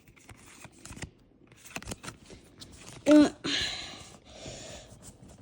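Trading cards being handled and slid over one another, with light clicks and soft rustling. About three seconds in comes a short hummed voice sound, then a louder rustle of cards sliding.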